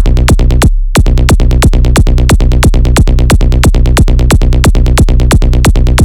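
Electronic dance music: a fast, steady drum-machine beat over sustained bass. Just before a second in, the beat drops out briefly, leaving only the bass.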